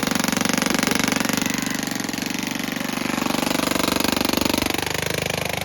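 A loud, rapid, steady mechanical rattle that starts and stops abruptly.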